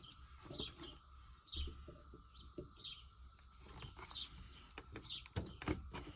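A small bird chirping faintly: short high chirps that slide downward, about five of them, spaced a second or so apart. Under them runs a faint steady high hum, and there are a few soft knocks, the loudest near the end.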